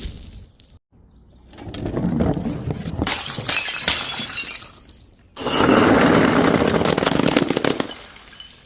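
Glass bottles breaking and shattering. A crunching, crackling stretch of breakage comes first. Then, about five and a half seconds in, a sudden louder crash of shattering glass runs on for about two seconds before fading.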